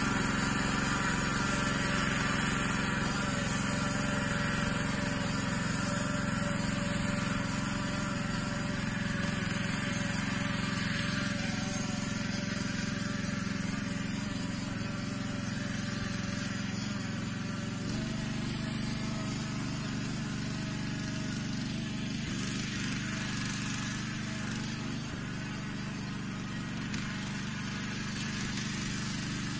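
Engine of a Yağmur YET 300 two-wheel walking tractor running steadily, its pitch stepping slightly about two-thirds of the way through.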